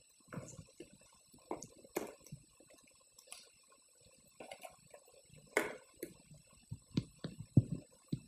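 Faint handling and movement noise: irregular small taps, clicks and rustles, with a few louder knocks about two, five and a half, and seven and a half seconds in, as the presenter moves about and works the laptop.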